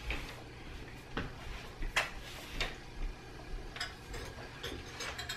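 Scattered light clicks and taps of kitchen items being handled at the counter, about half a dozen over a few seconds.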